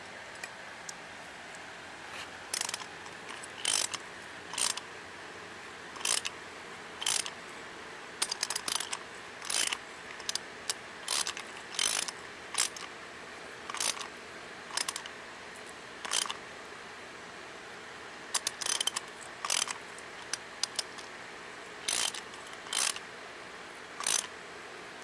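Socket ratchet clicking in short runs, over and over, as it turns a 1/4-inch pipe tap to cut threads into a Briggs & Stratton engine's cylinder head.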